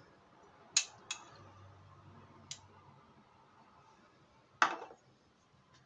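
A metal spoon clinking against a stainless-steel ring mold and dishes as fried rice is spooned in: four separate sharp clinks, the loudest a little before the end.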